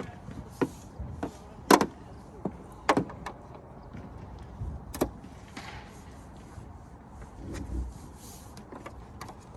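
Scattered clicks and knocks with a few short swishes as the straps, hooks and buckles of a Thule Getaway 2 trunk bike rack are handled and pulled tight against a car. The sharpest knock comes about two seconds in.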